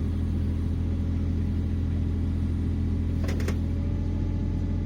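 3-tonne mini excavator's diesel engine running steadily under load while the machine climbs the truck ramps, with a brief high squeak about three seconds in.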